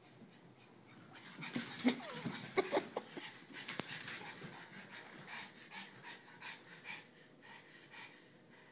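Pug dog panting in short, repeated breaths, with a few louder short breathy sounds about two to three seconds in.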